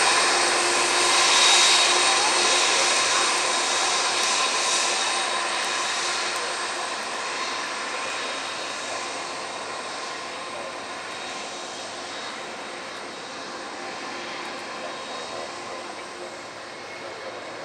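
Boeing 747-400's four Rolls-Royce RB211 turbofans at taxi power: a steady jet rumble with a high whine. It fades steadily as the airliner taxis away.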